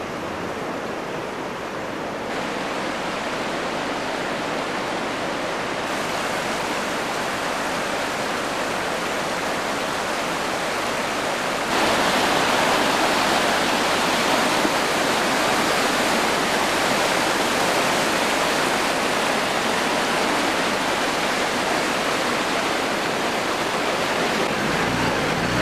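Jizera river in flood, fast brown water rushing and churning over a railing and down the channel in a steady noise. It steps up in loudness a few times and is loudest from about twelve seconds in.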